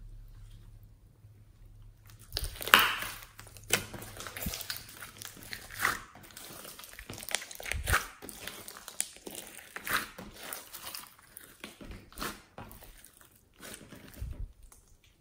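Slime, putty slime mixed into store-bought slime, being squeezed and kneaded by hand: irregular wet squishes and crackling pops. They start about two seconds in, the loudest about a second later, and die away shortly before the end.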